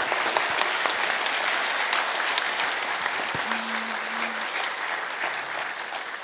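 Audience applauding, with dense, steady clapping that thins out near the end.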